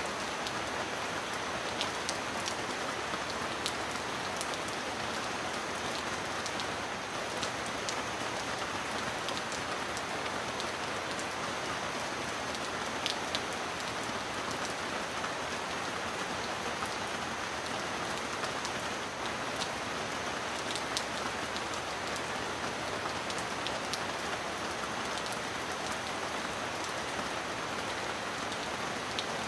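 Steady rain falling on a surface, with scattered sharp ticks of single drops. No thunder is heard.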